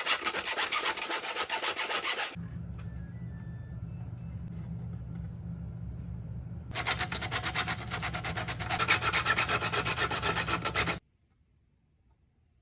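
Sandpaper being rubbed back and forth in quick strokes over a 3D-printed plastic helmet. A steady low hum comes in about two seconds in and runs under the sanding, and both cut off abruptly near the end.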